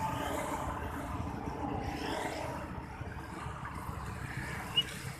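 Steady street traffic noise, vehicle engines running and passing, with a brief high chirp near the end.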